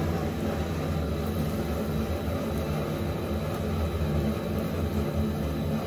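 Sel roti frying in hot oil in an iron kadai over a gas burner: a steady low roar with the oil sizzling.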